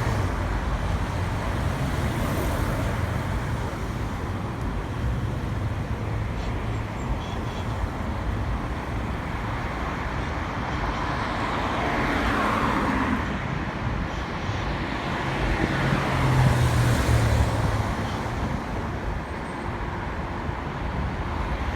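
A car on the road, with a steady rumble of engine and tyre noise that grows louder twice, about twelve and sixteen seconds in.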